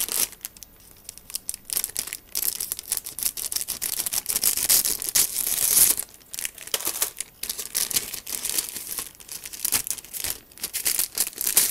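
Thin clear plastic bags around plastic model-kit sprues crinkling and rustling as the sprues are lifted and shuffled in the box, in uneven spurts with short lulls.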